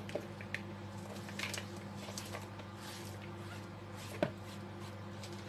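Faint kitchen handling sounds, soft taps and rustles with one light knock about four seconds in, over a steady low hum.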